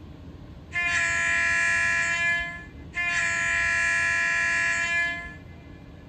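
Model locomotive sound decoder (ESU LokSound 5 in an Atlas GP9) playing a sampled diesel air horn through its small speaker: a shorter blast of about a second and a half, then a longer one of over two seconds after a brief gap. This is horn choice 2 of the decoder's selectable horns (CV 163 set to 2).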